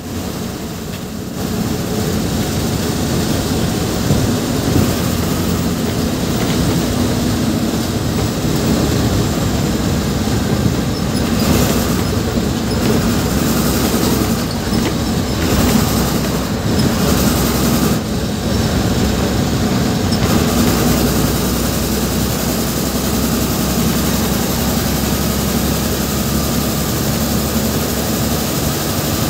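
Cab noise of a moving bus at highway speed: a steady engine drone and road noise with rattling and clatter from the body.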